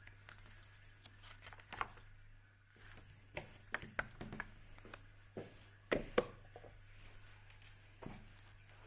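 Hands handling packaging and small plastic parts: scattered light clicks, taps and rustles, with two sharper clicks about six seconds in. A steady low hum runs underneath.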